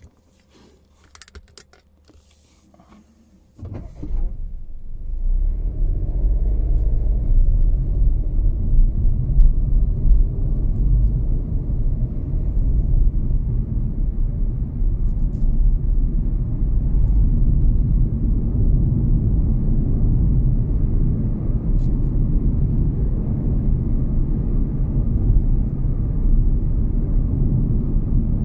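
Car on the move: a steady low rumble of engine and road noise, heard from inside the car. It starts suddenly a few seconds in, after a quiet stretch with a few light clicks.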